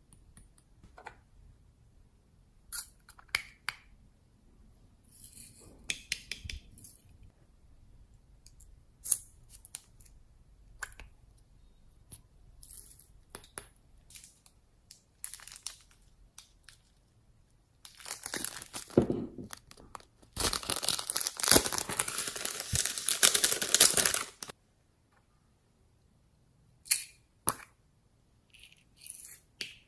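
Slime being squeezed and stretched by hand, giving scattered sticky crackles and tearing sounds, with a dense run of loud crackling about twenty seconds in that lasts some four seconds.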